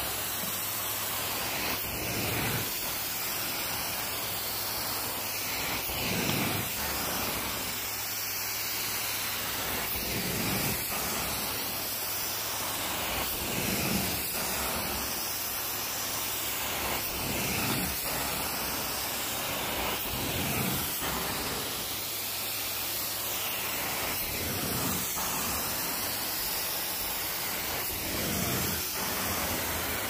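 Carpet-cleaning extraction wand working carpet: a steady hiss of suction and spray that swells every two to three seconds with each stroke.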